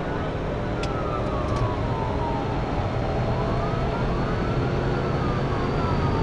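Police car siren on a slow wail, its pitch falling, rising again about four seconds in, then falling, over steady road noise from the patrol car accelerating past 100 mph.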